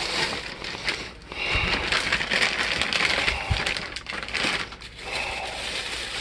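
Plastic bag crinkling and rustling as it is handled and opened, with many small crackles throughout.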